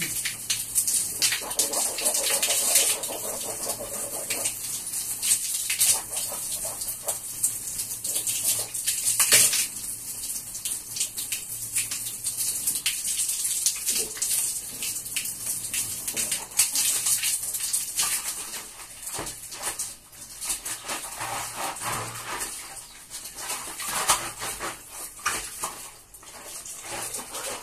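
Water splashing as a person repeatedly throws handfuls of water onto his face while washing it, with irregular splashes and water spattering onto the floor.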